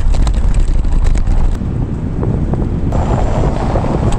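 Wind buffeting the microphone over the rumble and rattle of an electric kick scooter riding over cobblestones, with many small knocks from the stones. About three seconds in the sound turns to a smoother, louder hiss.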